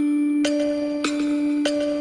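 Background music: a held steady note under struck notes on an even beat, a little under two a second.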